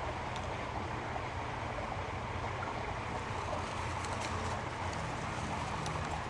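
Steady outdoor background noise with a low hum and a few faint ticks.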